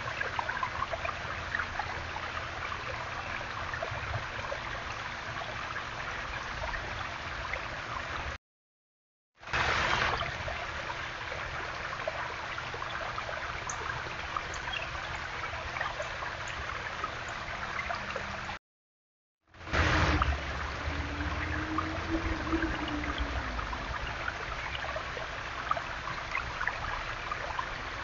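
Small garden waterfall, water running and trickling steadily over stacked stones. The sound is heard in three separate stretches, cut by two short silences about 8 and 18 seconds in.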